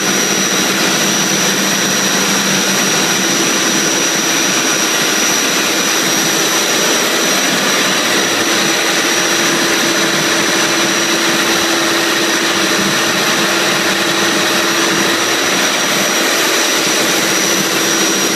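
MTU marine diesel engine running steadily in a closed engine room: a loud, even mechanical noise with a steady high-pitched whine above it.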